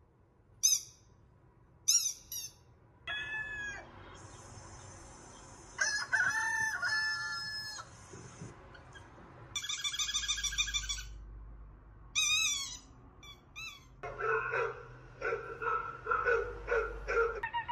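A string of different animal-like sound clips played for a dog: short high squeaks, a held high whistle-like tone, bird and fowl-like calls, and near the end a fast run of repeated calls.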